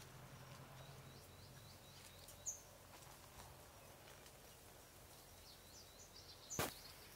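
Faint song of a green-winged saltator (trinca-ferro) overhead: two short runs of quick repeated high notes, 'tchê, tchê, tchê', over a quiet background. A single sharp knock comes near the end.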